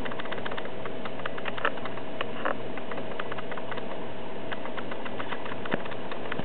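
Plastic exercise ball with a mouse inside rolling over a hard kitchen floor: a run of light clicks and rattles, with a few sharper ticks, over a steady low hum.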